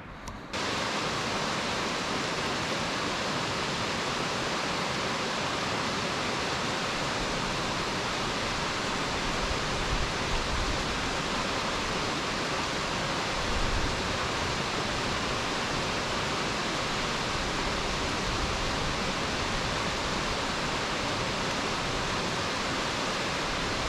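Nachi Falls, a tall waterfall, crashing down in a steady, even rush of falling water that cuts in abruptly about half a second in.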